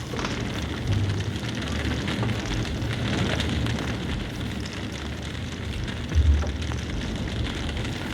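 Improvised noise music from turntables and drums: a dense crackling wash of noise over low droning tones, with a loud low boom about six seconds in.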